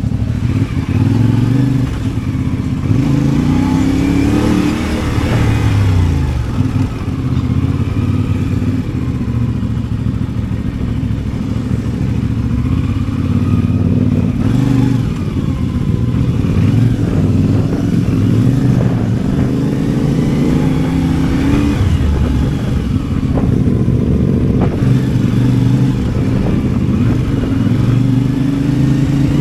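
CFMOTO 450MT parallel-twin engine running under way, its pitch repeatedly rising and falling as the bike accelerates and backs off.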